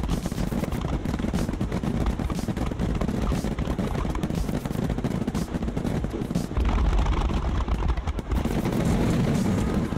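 Fireworks barrage: many aerial shells bursting in quick succession, a deep rumbling boom under dense crackling, getting louder about two-thirds of the way in.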